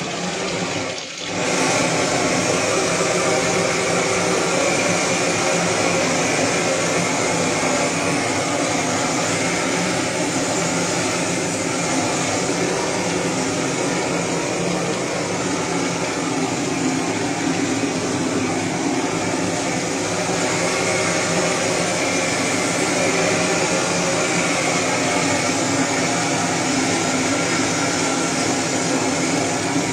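Hand-held gas blowtorch burning steadily, a strong even rushing noise with a low hum, dipping briefly about a second in. It is being played over the hanging carcass to singe it.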